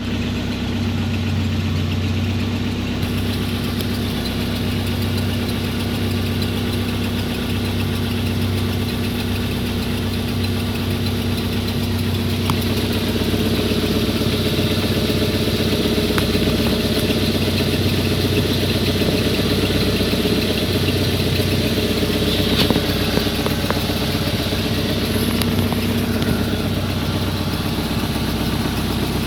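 Car running steadily with a low engine hum and a faint high squeak from the front right wheel, plus a brief sharper noise about 22 seconds in.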